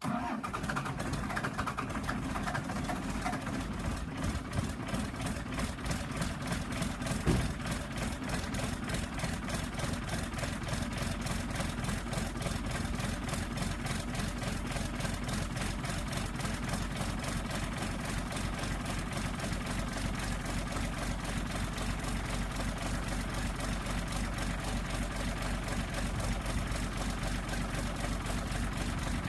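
12-valve Cummins 5.9 L inline-six turbodiesel running at a steady clattering idle just after a cold start in freezing weather without a block heater, blowing black smoke out of a hood stack. A single sharp knock about seven seconds in is the loudest moment.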